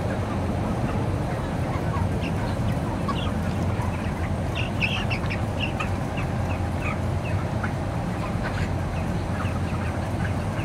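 A large flock of 35-day-old broiler chickens clucking, many short calls overlapping all through, over a steady low hum.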